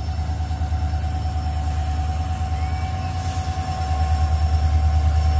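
EMD WDP-4 diesel-electric locomotive approaching under power, its two-stroke V16 engine giving a deep, pulsing throb under a steady high whine. It grows louder about four seconds in as it draws near.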